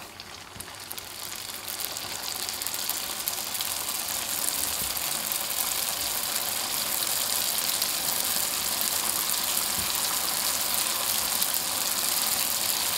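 Hot oil sizzling as pieces of yeasted dough deep-fry in a wok; the sizzle builds over the first couple of seconds as more pieces go in, then holds steady.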